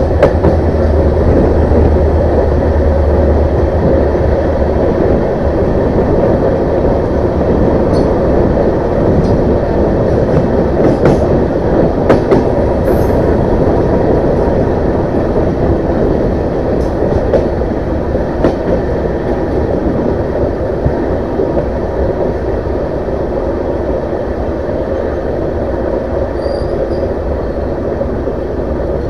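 Running noise of a moving passenger train heard at an open coach doorway: a loud, steady rumble of wheels on rail mixed with rushing air, heaviest in the first few seconds, with a few sharp clicks in the middle.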